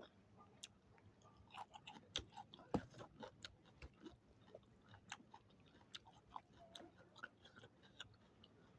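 A person chewing food close to the microphone: irregular small wet clicks and crunches, with a louder crunch a little under three seconds in.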